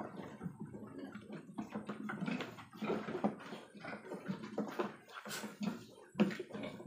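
Newborn piglets handled in a box: short irregular rustles, scrapes and soft grunts as they are lifted out one after another.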